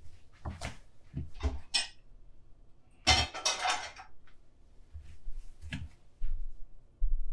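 Cooking pot and metal utensil clatter: a few short knocks and clinks, then a longer scraping rustle about three seconds in, and another knock near the end.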